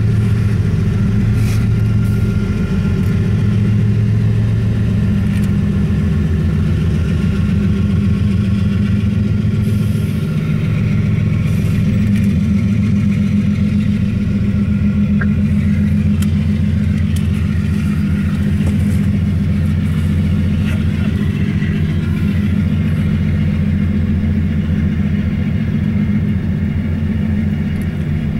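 Diesel locomotives of a CSX double-stack freight train passing close, their engines running with a steady low drone and fast throb. By the end, the train's cars are rolling by.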